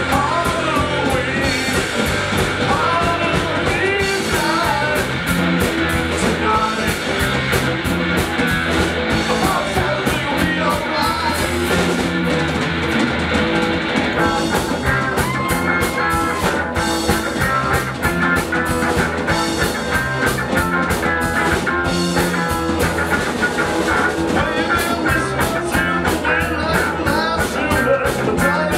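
Live rock band playing: distorted electric guitars, bass guitar and a drum kit keeping a steady beat, with a man singing lead.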